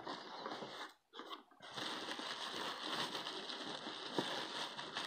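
Faint handling of a small cardboard box and the plastic wrap inside as it is opened, over a steady hiss; the sound drops out briefly about a second in.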